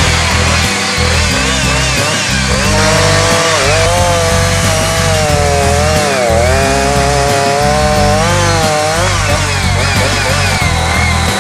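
Chainsaw running and cutting into wood, its pitch rising and falling as the load changes, over background music.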